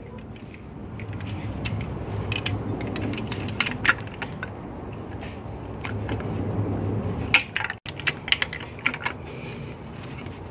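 Light metallic clicks and taps of small engine fittings being handled and threaded in by hand, over a low steady hum.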